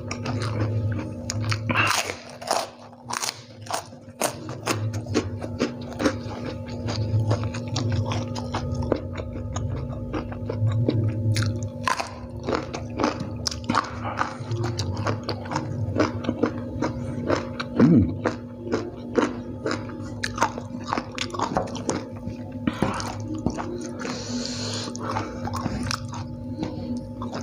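Close-up crunching and chewing of a white fried cracker (krupuk) and fried noodles, with many sharp crunches. Background music plays underneath.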